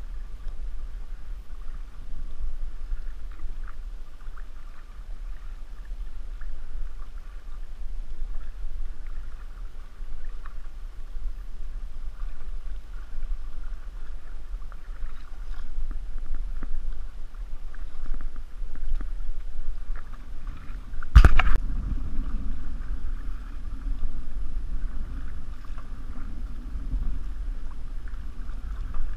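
Metal canoe being paddled across a lake: water splashing and lapping against the hull over a steady low rumble. A single loud, sharp knock about three quarters of the way through.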